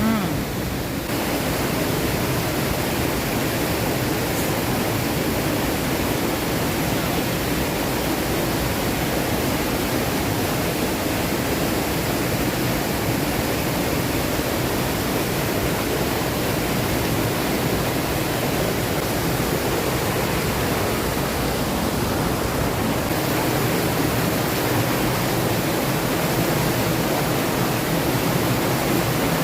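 Waterfall and stream water rushing steadily over rocks, a constant even roar.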